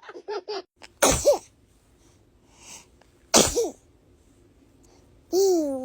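A young girl sneezing twice, about two seconds apart, each a sudden sharp burst, with a few short quick vocal sounds just before the first. Near the end, a long drawn-out vocal sound that slides down in pitch.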